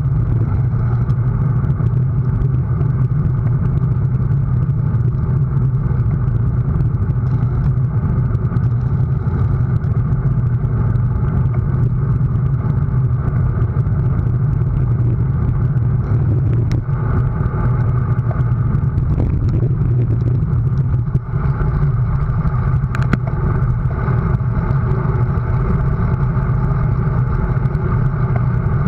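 Steady wind rush on the microphone and tyre rumble from a road bicycle moving at speed: a loud, unbroken low rumble.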